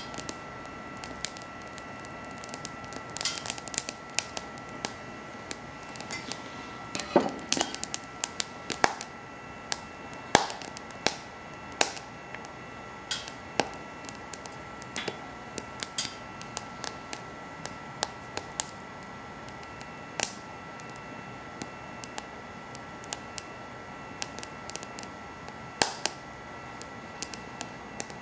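Wood fire crackling in a BioLite wood stove, with irregular sharp pops, some louder and in quick clusters, over a steady hiss and faint high whine.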